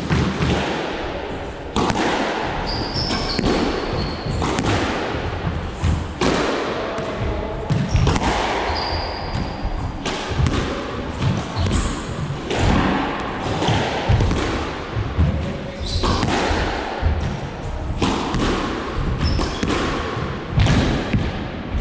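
Squash rally: the ball smacking off rackets and the front wall every second or two, each hit echoing around the walled court, with a few brief high squeaks, likely shoes on the wooden floor.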